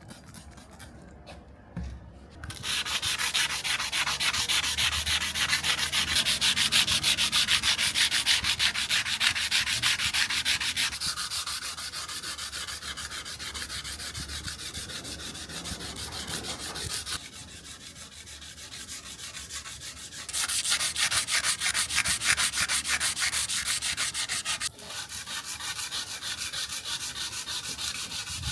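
Steel knife blade being sanded, a fast, even scratching that starts a couple of seconds in. It eases off in the middle, pauses, then comes back louder with a brief break near the end.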